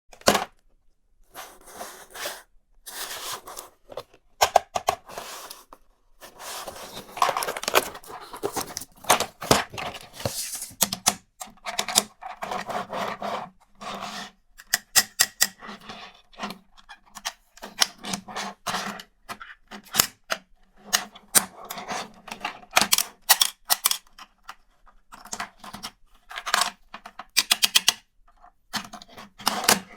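Plastic toys and their packaging handled close to the microphone: a busy, irregular run of clicks, taps and scraping, with short pauses between bursts.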